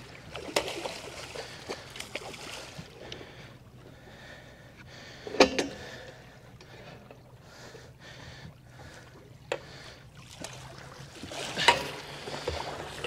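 Water lapping against a small aluminium boat's hull, with a few sharp knocks and clatters in the boat, the loudest about five seconds in.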